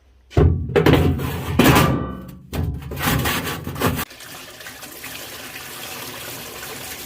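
Liquid sloshing and splashing loudly in a parts washer tub in irregular surges, then a steady stream of running liquid from about four seconds in.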